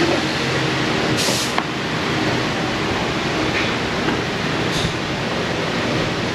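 Steady mechanical rumble with a low hum, and a short hiss just over a second in and a fainter one about five seconds in.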